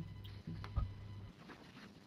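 Faint room tone with a steady low electrical hum, and one soft click a little under a second in.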